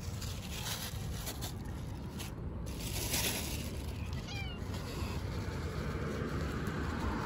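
Domestic cat meowing, one short call about four and a half seconds in, over a steady low background rumble.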